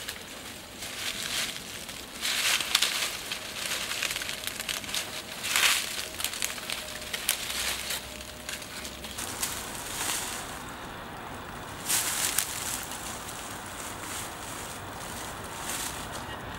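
Bare feet stepping slowly through dry leaves and twigs on a woodland floor, several separate crunching, rustling steps a second or more apart.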